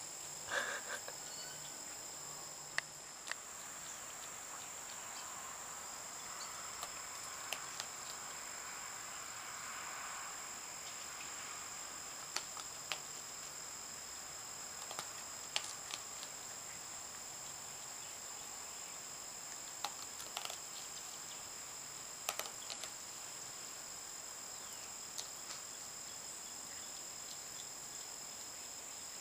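Insects trilling steadily at two high pitches, with a dozen or so short sharp clicks and taps scattered through, the first of them just after the start.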